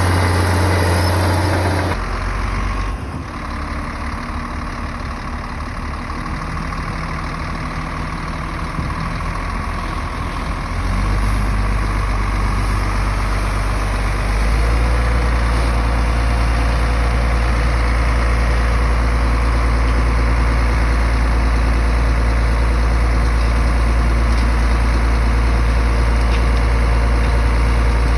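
Diesel engine of a heavy earthmoving machine running with a deep, steady hum. Its pitch and loudness change abruptly about two, eleven and fourteen seconds in.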